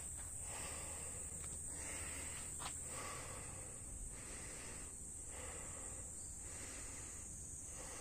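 Insects buzzing in a steady high-pitched drone, with faint soft sounds about once a second beneath it.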